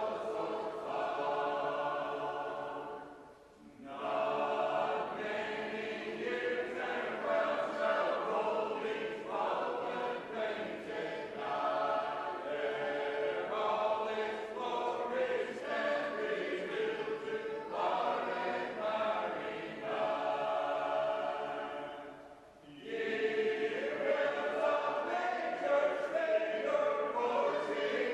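A group of shape-note singers singing a hymn a cappella in parts. The singing breaks off briefly twice, about three seconds in and again about twenty-two seconds in, then picks up again.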